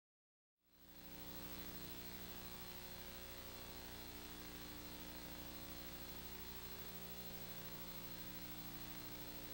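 Silence, then from about half a second in a faint steady electrical hum with a light hiss.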